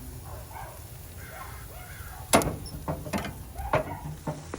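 A series of sharp knocks or clacks: one loud one about halfway through, then four smaller ones in quick, uneven succession.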